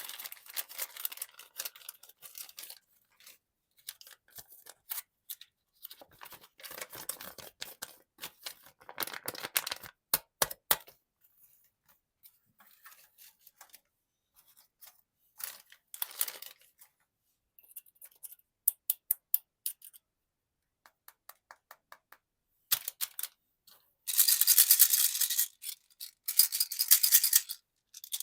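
Plastic candy packaging being handled and opened: irregular bursts of crinkling and rustling with small clicks, denser and louder near the end.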